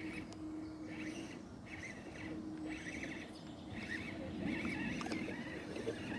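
Electric motor and gear drive of a radio-controlled crawler whining in short repeated bursts, over a faint steady hum.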